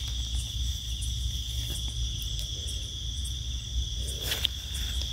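Night insects, crickets by their sound, chirring in a continuous high steady trill, with a brief scratchy rustle a little after four seconds in.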